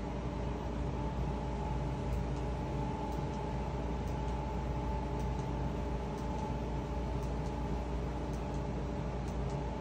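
Small electric motor of a homemade pot-spinning turntable running at a steady low speed: a constant hum with a higher steady tone above it and a few faint ticks now and then.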